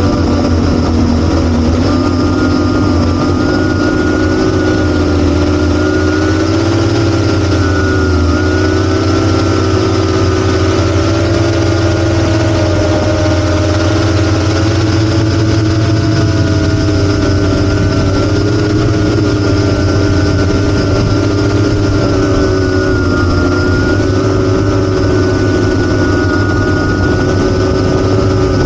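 Brushless motors and propellers of an 8-inch FPV quadcopter (T-Motor F90 KV1300 motors) running in flight: a loud, steady buzzing whine whose pitch drifts slightly up and down with the throttle.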